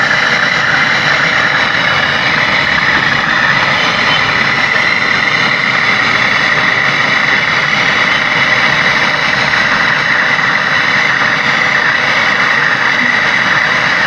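Brazing torch flame hissing steadily and loudly as it heats a refrigerant tube joint.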